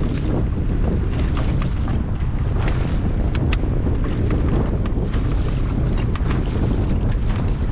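Wind buffeting the microphone: a heavy, steady low rumble with scattered sharp ticks and crackles.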